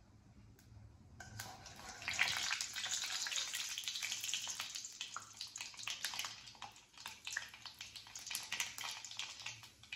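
Mustard seeds and dal sizzling and crackling in hot sesame oil in a steel kadai, with many small sharp pops: tempering, with the oil hot enough to make the seeds splutter. The crackling starts about a second in.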